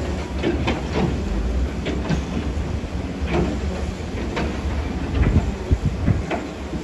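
Heavy earthmoving machinery working: a diesel engine running with a low, steady rumble under irregular metallic clanks and knocks.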